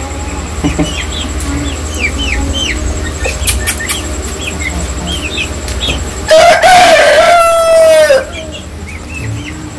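Aseel chicks peeping in short, high chirps while being hand-fed, and about six seconds in an Aseel rooster crows once, a single loud call of about two seconds that holds one note and drops at the end.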